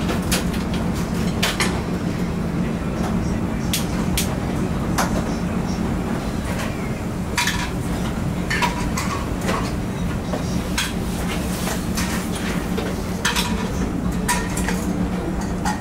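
Kitchen clatter: a metal ladle and utensils clinking against metal pots and ramen bowls in many short, sharp clinks, over a steady low hum of the stove and kitchen.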